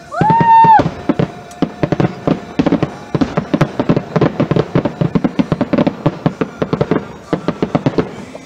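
Aerial fireworks going off in a fast, continuous string of bangs and crackles, many bursts a second. It opens with a loud whoop that rises and falls in pitch.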